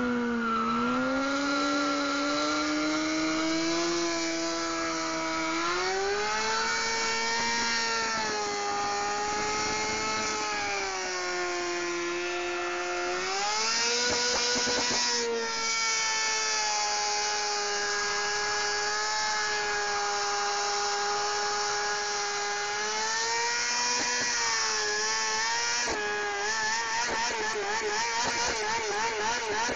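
Kawasaki Ninja 636 inline-four engine held at high revs through a long burnout in snow, the revs swelling and sagging slowly over a steady hiss from the spinning rear tyre. Near the end the revs start wavering rapidly up and down.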